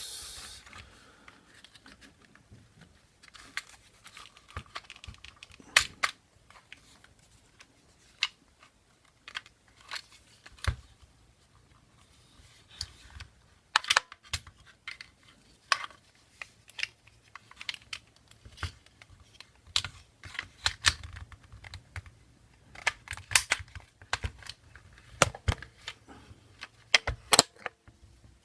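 Irregular clicks and small knocks of small parts being handled and fitted into a KWA M11 airsoft gun's lower receiver.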